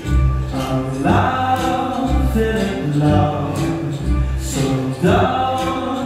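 Live ensemble music: a grand piano and a cello playing, with a flute carrying the melody. Low bass notes fall about once a second under sustained melody notes.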